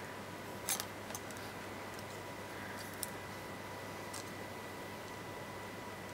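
Faint, scattered clicks and taps of plastic as a remote control's shell and its small molded button pieces are handled, the clearest click just under a second in. A faint steady high tone runs underneath.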